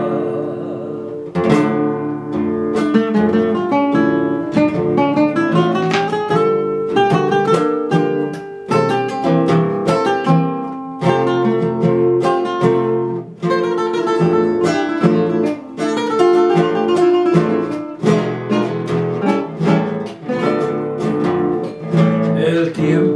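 Two nylon-string classical guitars playing an instrumental passage of a zamba between sung verses. One guitar fingerpicks the melody while the other strums the rhythm.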